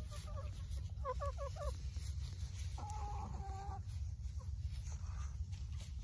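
Backyard hens clucking: a quick run of short clucks about a second in, then one longer held call near the middle, over a steady low rumble.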